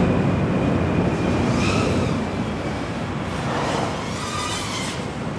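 3.5-inch micro FPV quadcopter's brushless motors and propellers whining over rushing wind noise, the whine surging and gliding up and down in pitch with the throttle during freestyle flying.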